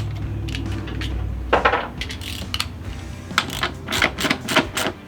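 Irregular metallic clinks and clicks of tools and bike parts being handled during motorcycle assembly, with the loudest clatter about a second and a half in.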